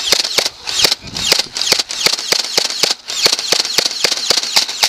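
Foam-dart blasters firing in a rapid run of sharp clicks and pops, several a second, without a break.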